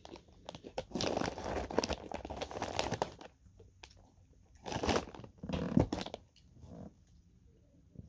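Plastic snack bag of banana chips crinkling as a hand rummages in it: a long spell of rustling starting about a second in, then two shorter bursts around the fifth and sixth seconds.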